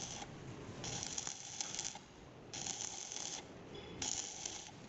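Stick-welding arc crackling and hissing in short bursts of about a second, stopping and restarting three times, as weld is built up on the worn bearing seat of a truck wheel hub.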